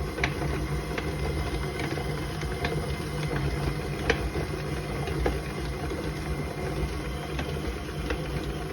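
Electric stand mixer running steadily at a raised speed, its beater working flour into stiff shortbread dough, with a few sharp ticks through the motor's hum.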